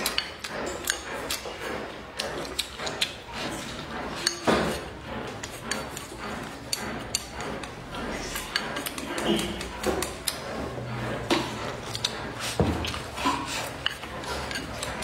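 Eating sounds: wooden chopsticks clicking and knocking against a bowl many times as food is picked up, with chewing in between.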